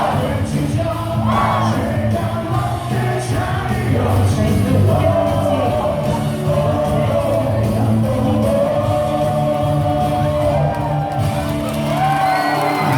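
Baseball stadium crowd singing a team cheer song in unison over loud music from the stadium speakers, with shouts and whoops mixed in.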